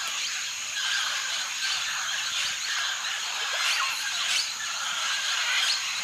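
Baby parrot chicks begging with continuous raspy, buzzing calls, with short sharp squeaks cutting through, more of them near the end; the sound of hungry chicks wanting to be fed.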